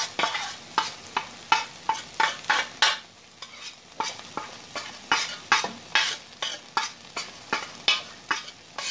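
Metal spoon scraping and clinking against a stainless steel plate and pan as spice powder is pushed off the plate into the pan: a run of short, sharp scrapes, about two or three a second, each with a brief metallic ring, pausing for a moment about three seconds in.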